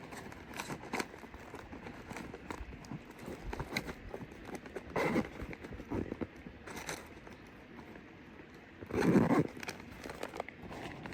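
Intermittent handling noises: light clicks and rustles, with two louder crunchy, crinkling bursts about five and nine seconds in.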